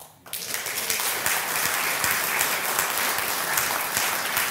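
Audience applause: many hands clapping, breaking out about a third of a second in and holding steady.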